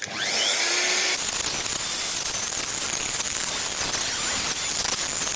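Router with a 6 mm bit starting up and cutting through timber freehand, a rising whine in the first second settling into a steady, loud, high-pitched cutting noise.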